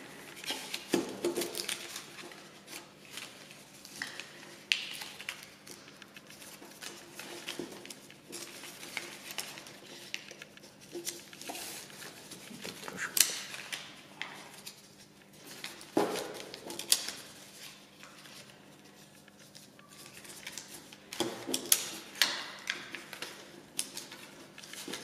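Sheet of paper being folded and creased by hand on a tabletop: irregular rustling and crinkling with small scrapes and taps as the folded points are pressed down.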